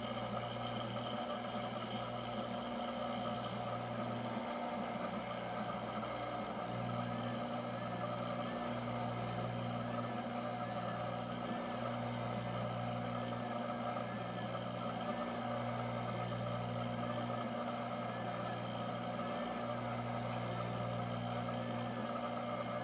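Dyna Myte 2800 CNC milling machine cutting aluminium with an end mill. The spindle runs steadily while a low hum starts and stops every second or two as the axes move along an adaptive clearing toolpath.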